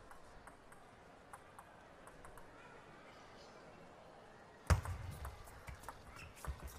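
Table tennis: faint ticks over a quiet hall hiss, then a sudden loud thump as the serve goes in about two-thirds of the way through, followed by quick sharp clicks of the celluloid ball off the paddles and table in a fast rally.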